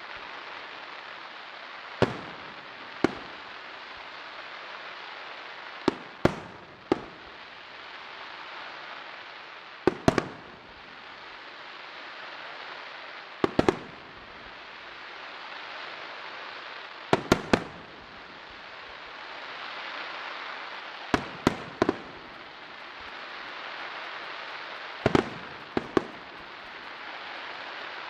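Aerial fireworks shells bursting: sharp bangs, single or in quick runs of two to four, every few seconds, with a steady hiss between the bursts.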